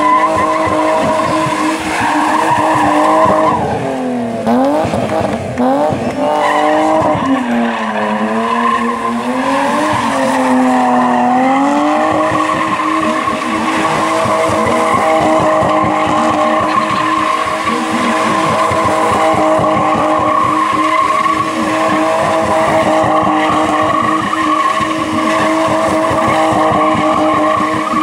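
BMW E30 325i 'Gusheshe' straight-six held near the limiter while the car spins, rear tyres squealing and skidding. The revs sag and swing up and down a few times between about 4 and 12 seconds in, then hold steady and high.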